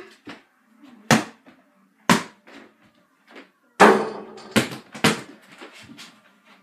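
A basketball bounced about once a second, three times, then shot at an over-the-door mini hoop. About four seconds in comes a loud bang on the hoop with a rattle, and two more bounces follow.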